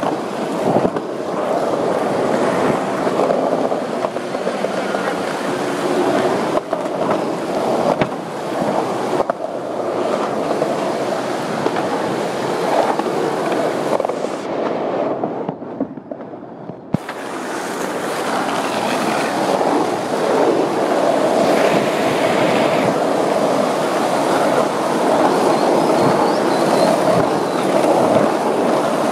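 Skateboard wheels rolling over street pavement, a continuous gritty rumble with a few sharp clacks over cracks. The rumble drops away for about two seconds about halfway through, then comes back steady.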